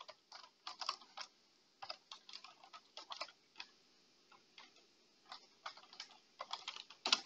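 Computer keyboard keys clicking faintly in irregular runs of typing, with one louder keystroke near the end.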